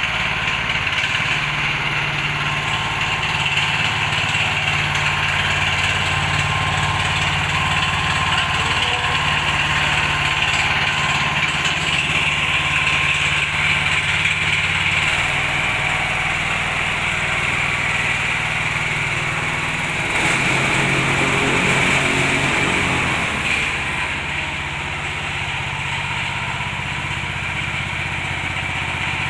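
Honda GX390 single-cylinder petrol engine of a double-drum vibratory baby roller, running steadily. Its note shifts about twenty seconds in, and the sound gets slightly quieter a few seconds later.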